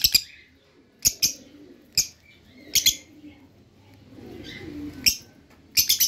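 Lovebirds giving short, sharp, high-pitched chirps, one or two at a time about every second, with a pause of about two seconds in the middle.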